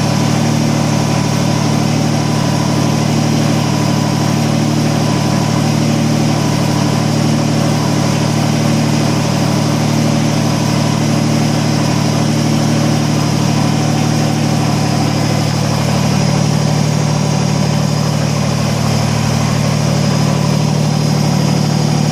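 Kubota BX25D compact tractor's three-cylinder diesel engine running steadily, with a slight change in its tone about 16 seconds in.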